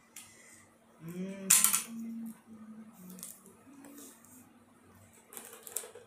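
A cardboard box being slit open and handled: scattered clicks and scrapes, the loudest a sharp crack about a second and a half in. A faint wavering whine runs through the middle.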